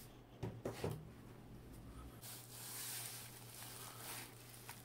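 Handling noises: a few soft knocks, then plastic rustling from the protective bag a computer mouse comes in, over a faint steady low hum.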